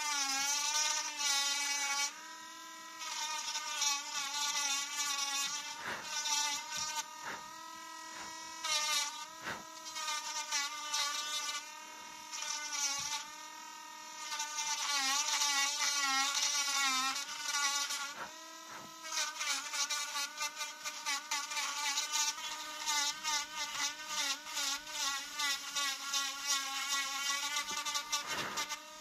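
Mini rotary engraving pen running with its tiny bit cutting into a wooden knife handle. It makes a high, buzzing motor whine whose pitch wavers as the bit bears on the wood, with brief dips now and then.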